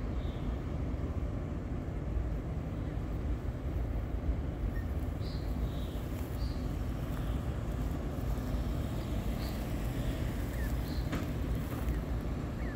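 Canada goose goslings peeping: short, high notes that drop in pitch, heard several times at irregular intervals over a steady low rumble.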